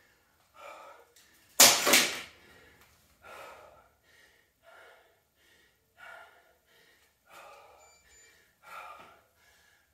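A woman breathing hard and out of breath after a round of jump rope: one loud heavy exhale about two seconds in, then repeated softer panting breaths about every second or so.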